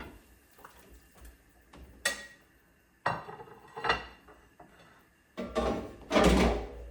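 Pot and kitchen utensils clattering as chicken pieces go into a pot of boiling water to blanch: a few sharp knocks, then a longer, louder clatter near the end.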